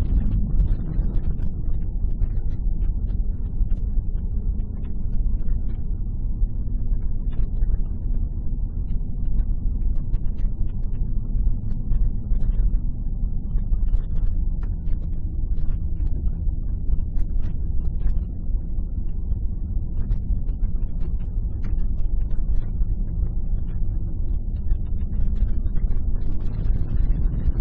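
Car cabin noise while driving: a steady low rumble of the engine and tyres on the road, heard from inside the car.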